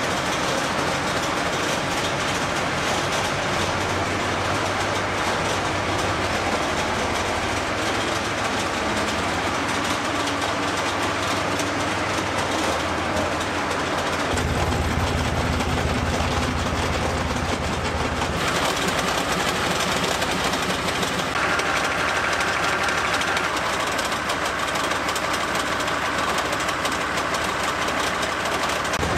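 Tank's 38.8-litre V12 diesel engine running steadily, its tone shifting a few times. The owner thinks a few cylinders are not firing, from lack of compression or from the injectors or fuel pump.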